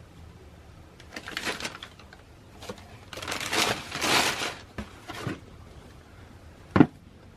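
Sneaker-box packaging rustling and crinkling as it is handled, in two spells, followed by a few light taps and one sharp knock near the end.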